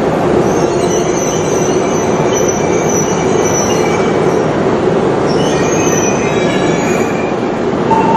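Shinkansen train running at a station: a steady, loud rail rumble with faint high-pitched wheel squeal over it.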